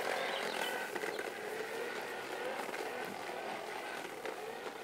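Fisher-Price toy bubble mower running as it is pushed over grass: a steady motor-like hum with light plastic clatter, growing gradually quieter as it moves away.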